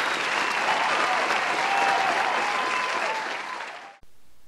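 Applause, clapping from many hands, fading down and cutting off sharply near the end.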